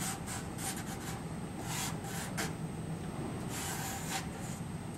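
Soft pastel stick rubbing and scratching across paper in a run of short strokes, with one longer stroke late on, as colour is laid down.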